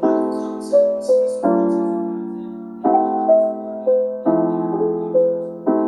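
Calm background music: sustained chords struck about every second and a half, with a short melody of single notes over them.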